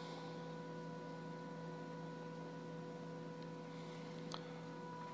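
Steady low hum made of several fixed tones, with a faint click about four seconds in.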